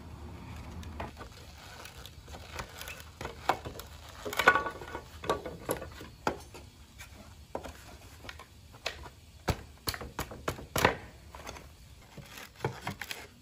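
Pallet boards being pried up with a steel pry bar: irregular wooden cracks, knocks and clicks as the slats lift and the nails work loose. A creak about four and a half seconds in is the loudest.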